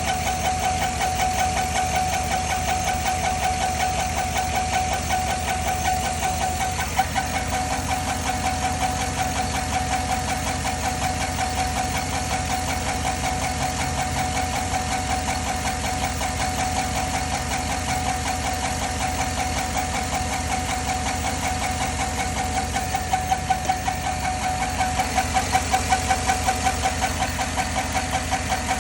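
2010 Chevrolet engine idling with a fast, even ticking, which the owner suspects is lifter tick. A steady whine runs under it, and the ticking swells for a few seconds near the end.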